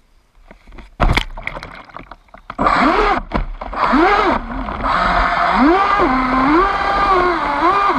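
A knock and splashing about a second in as the RC boat goes into the water, then the Aquacraft 2030 brushless motor of a rebuilt Miss Geico 29 model race boat spins up in short throttle bursts. Its whine rises and falls in pitch over churning water.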